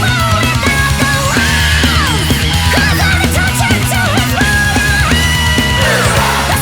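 Nightcore edit of a heavy metal song, sped up and pitched up. A high melody line slides and holds long notes over a steady bass and a regular drum beat.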